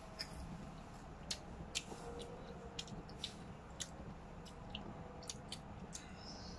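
Seaweed snack being chewed close to the microphone: faint, irregular small crunches and mouth clicks.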